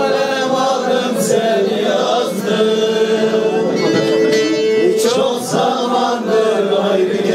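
Male voices singing a Turkish folk song in long drawn-out notes, with strummed bağlama accompanying.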